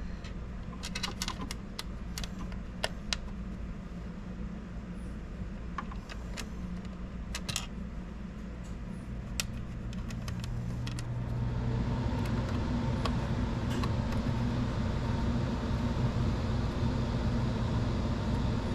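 Small metallic clicks and ticks of mounting screws being handled and driven into a 3D printer's power supply bracket, scattered through the first half, over a steady low hum that grows louder about eleven seconds in.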